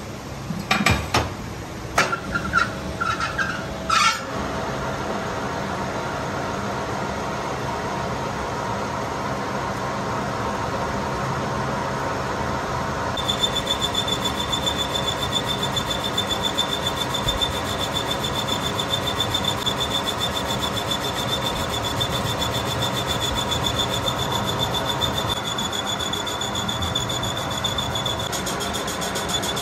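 Metal lathe machining a truck engine piston held in a four-jaw chuck. A few sharp metallic knocks and clinks in the first four seconds as the chuck is tightened with its key, then the lathe running steadily, with a high steady whine from the cutting tool on the spinning piston from about thirteen seconds in.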